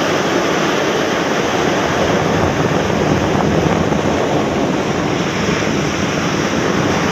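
Surf breaking and washing up a sandy beach, mixed with strong wind on the microphone: a loud, steady rush with no distinct breaks.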